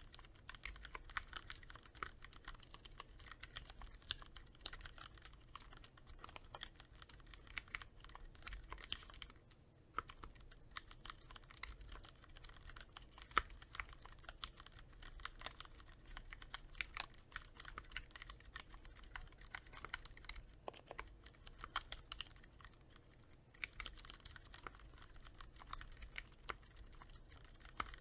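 Continuous typing on a Cherry MX Board 3.0S keyboard with Cherry MX Red linear switches, lightly lubricated with Krytox 105: a fast, steady run of keystrokes with a short pause about ten seconds in.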